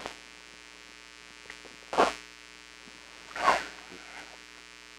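A man drinking stout from a glass mug: two short noisy sips, swallows or breaths, about two and three and a half seconds in, over a steady electrical mains hum.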